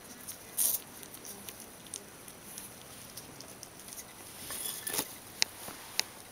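Four-week-old kitten lapping at a water dish and pawing at the wet floor covering: faint scattered ticks and taps, a brief noisy burst about half a second in, and a few sharper clicks near the end.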